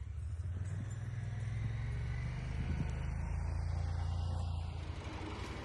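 Side-by-side utility vehicle's engine running steadily with a low hum, easing off about five seconds in.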